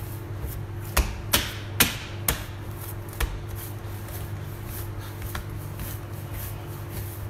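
Pizza dough being kneaded and folded by hand on a stone worktop: several sharp slaps and knocks in the first three seconds or so, then quieter handling over a steady low hum.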